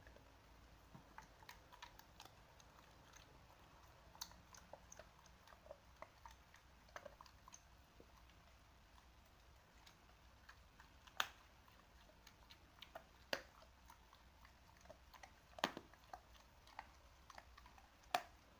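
Dogs chewing and crunching: faint, irregular wet clicks and bites, with a few sharper cracks in the second half.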